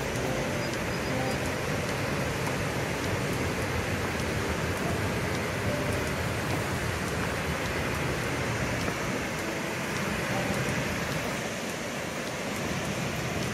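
Steady rushing of a waterfall in full flow and the white water on the river below it.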